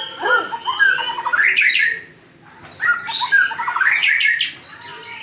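White-rumped shama singing: two quick phrases of varied whistled notes and rising sweeps, with a short pause between them.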